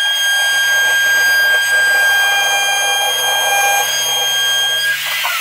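Handheld wood router running at full speed with a steady high whine as it flush-trims the overhanging edge of a face frame against the plywood cabinet side. Near the end the motor is switched off and winds down.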